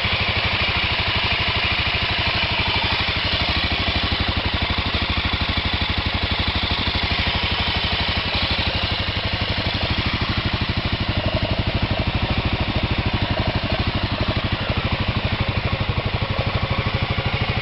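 Aprilia Moto 6.5's single-cylinder four-stroke engine idling steadily, an even exhaust pulse with no revving.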